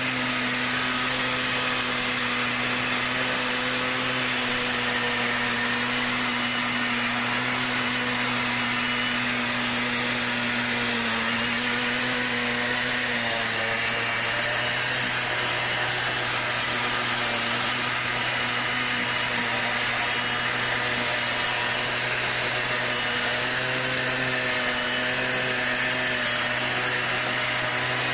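Simson Star moped's single-cylinder two-stroke engine held at high revs during a burnout, the rear tyre spinning on the spot. The revs dip briefly about halfway through, then pick back up.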